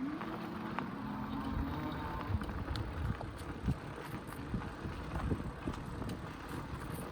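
An electric bike ridden up a rough dirt trail: the motor's whine rises slightly over the first couple of seconds, over a steady rumble and scattered knocks and clatter from the tyres and frame on rocks.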